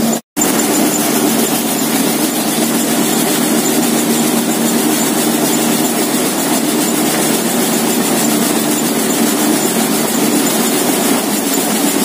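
Tractor-driven soybean thresher running steadily under load, with the tractor's engine running beneath the thresher's drum and fan noise. The sound drops out for a split second just after the start.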